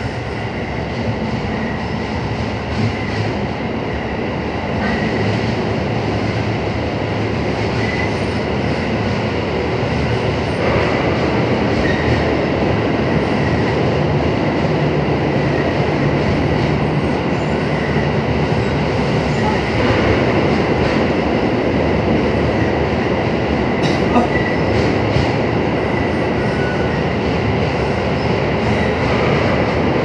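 JR 221 series electric train running at reduced speed under a typhoon slow order, heard from inside the carriage: a steady rumble of wheels on rails that slowly grows louder, with faint short squeals now and then.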